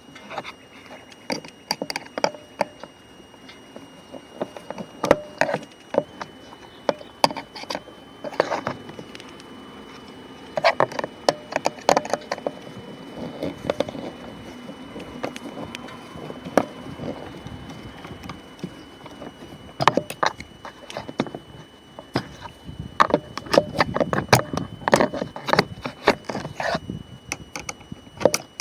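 Irregular clicks and taps of a screwdriver and hands working the last screw out of a car door's interior trim panel.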